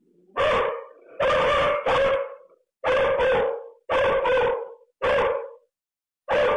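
A dog barking repeatedly: about nine loud barks, several of them in quick pairs.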